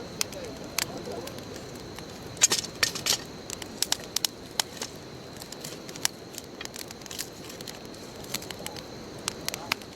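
Wood bonfire crackling, with sharp irregular pops and a dense flurry of loud snaps about two and a half to three seconds in.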